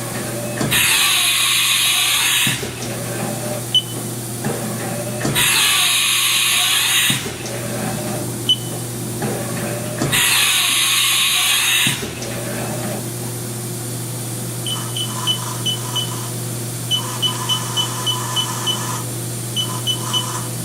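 Haas VF2 machining center doing tool changes: three loud blasts of hissing air, each under two seconds and about five seconds apart, as the spindle releases and clamps tools, over a steady low machine hum. Near the end, a run of short high beeps in quick groups from the control keypad.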